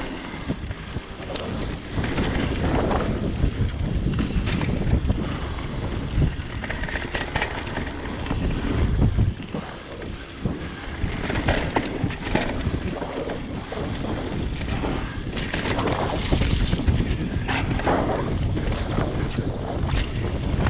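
Wind buffeting the microphone and mountain bike tyres rolling fast down a dirt trail, with frequent clattering knocks as the bike bounces over rough ground.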